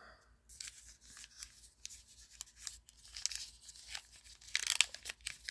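A baseball card pack's wrapper being torn open roughly, with ragged crinkling tears that get louder near the end; the pack is being ripped apart in impatience.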